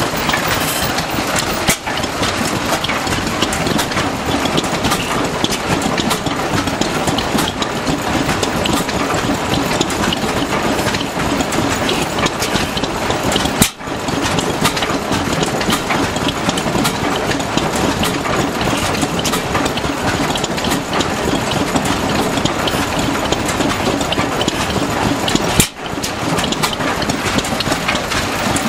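Vintage stationary engines running together, a steady mix of exhaust beats and mechanical clatter. The sound drops out briefly twice as the shot changes.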